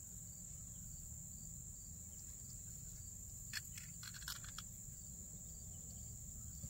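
Steady high-pitched chorus of crickets in a grass field, over a low rumble. A few brief clicks a little past the middle.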